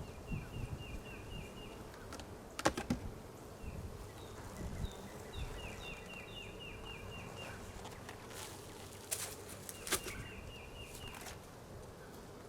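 Honeybees buzzing at an open hive, while a bird sings three runs of short, quickly repeated chirps. A few sharp knocks come through, the loudest about three seconds in.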